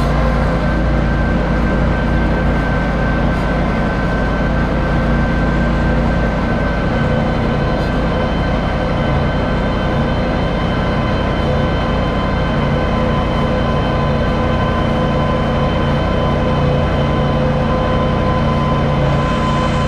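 Ventrac compact tractor running steadily under load with its Tough Cut mower deck cutting overgrown grass: an even engine drone with a steady whine over it.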